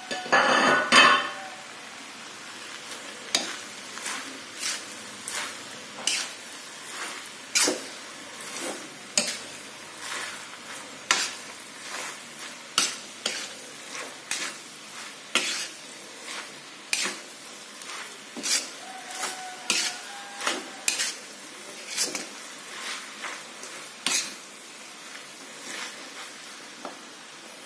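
Metal spatula stirring and tossing fried noodles and greens in a wok. It scrapes the pan in repeated strokes, roughly one every half second to second, over a low sizzle. About a second in there is a louder rush of noise.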